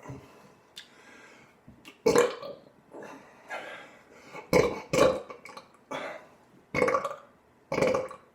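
A man belching on purpose: a string of loud burps about a second apart, starting about two seconds in.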